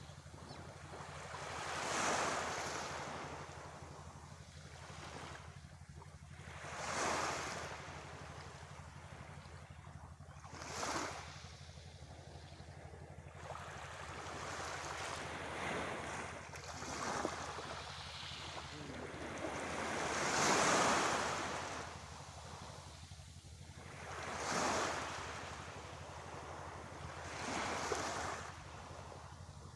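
Sea waves breaking on a shore, each swelling and falling back every few seconds, over a steady low hum.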